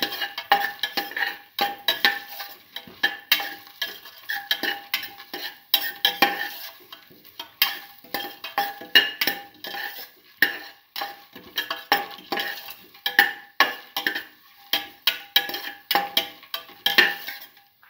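A spatula scrapes and knocks against the bottom and sides of a metal pot as beef pieces, onions, tomatoes and spices are stirred and sautéed, in quick irregular strokes.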